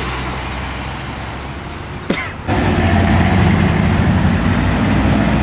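Road traffic passing close by: steady engine and tyre noise that swells louder about two and a half seconds in as a vehicle comes past.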